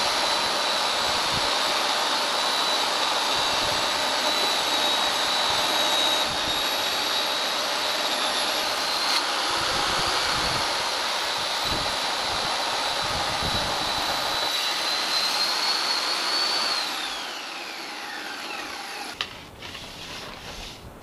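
Table saw running with a steady high whine while it slices the back off a wooden strip of cut plugs, freeing them. Near the end the saw is switched off and the whine falls away as the blade spins down.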